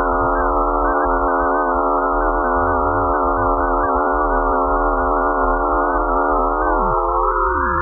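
A 'sound of the universe' recording, space data turned into audio: a dense chord of steady, slightly wavering electronic-sounding tones, with a few tones gliding downward near the end.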